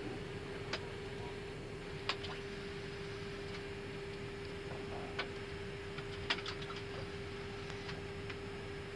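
Airbus A319 cockpit at the gate with both engines shut down: a steady hum carrying one constant tone, broken by scattered single clicks of switches being flipped on the overhead panel.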